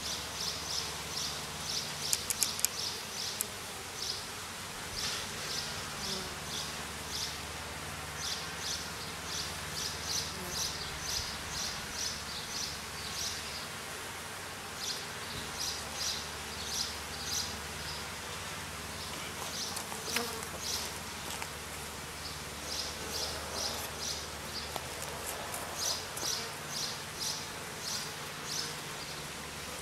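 Honey bees buzzing around an opened hive, a low hum that comes and goes. Over it, trains of short high-pitched chirps repeat a few times a second, and a few sharp clicks come about two seconds in.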